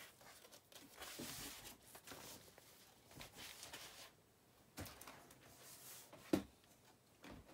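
Faint rustling and handling of packaging as a cardboard box and shopping bags are moved and searched, with one sharp knock about six seconds in.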